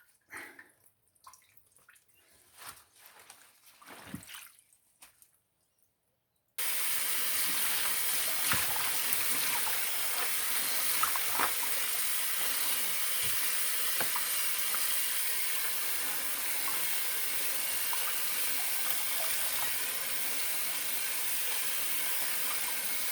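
Water running from a tap into a sink, starting abruptly about six seconds in and then running steadily, with a few light knocks. Before it, only faint handling sounds.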